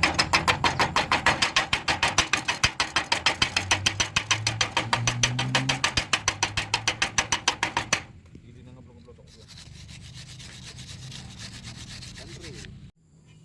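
Fast back-and-forth scrubbing strokes, about five a second, that stop abruptly about eight seconds in. A much fainter steady sound remains after that.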